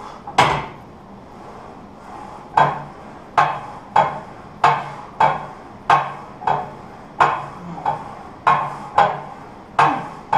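Plate-loaded leg press sled clanking through repetitions: sharp metallic clanks, one just after the start, then a steady run of them in quick pairs.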